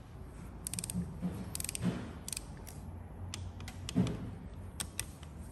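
Torque wrench ratcheting and clicking as the camshaft bearing cap bolts on a 1.8 F18D4 cylinder head are tightened to torque. A series of sharp clicks, the strongest about two and four seconds in.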